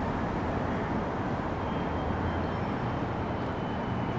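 Steady city traffic noise: a continuous low rumble of road vehicles with an even hiss over it.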